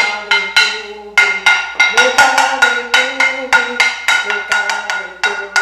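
A metal cooking pot beaten with a wooden spoon in a quick steady rhythm, about three to four strikes a second, each strike leaving a metallic ring. A woman sings over it.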